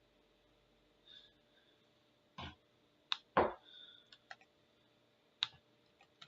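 Half a dozen scattered clicks and light knocks in a small room, irregularly spaced, the loudest and longest a dull knock about three and a half seconds in.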